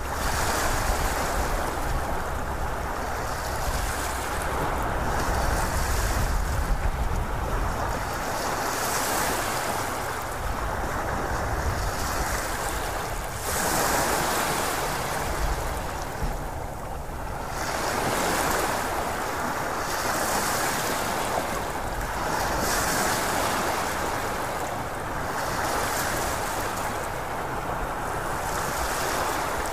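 Ocean surf: a continuous rushing wash of waves that swells and fades every few seconds.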